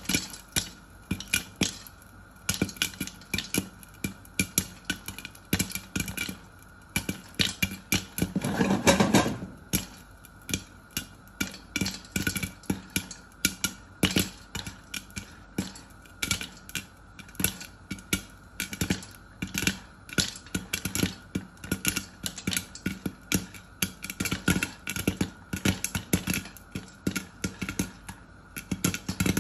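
Popcorn popping in a glass-lidded pan on the stove: an irregular run of sharp pops, several a second, with a louder, denser stretch about nine seconds in.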